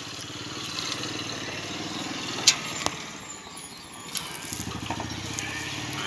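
A water buffalo hand-milked into a steel pail over a steady low mechanical hum, with a sharp metallic clank about two and a half seconds in.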